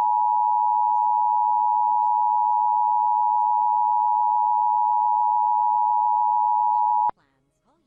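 Emergency Alert System attention signal: a steady, loud two-tone alert of 853 and 960 Hz sounded together, which cuts off abruptly about seven seconds in.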